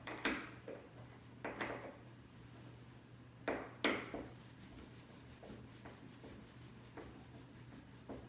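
A few short knocks and clicks from handling the speaker and its fastenings during ceiling installation, the loudest two close together about three and a half seconds in, with faint ticks after and a low steady hum underneath.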